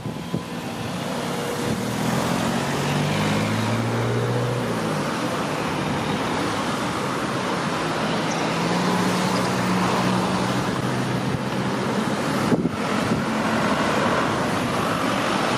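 Road traffic passing: a steady rush of motor vehicle engine and tyre noise, with an engine hum standing out in the first few seconds.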